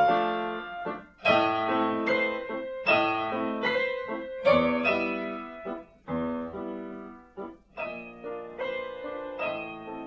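Piano playing chords and short phrases, each struck note ringing and fading before the next.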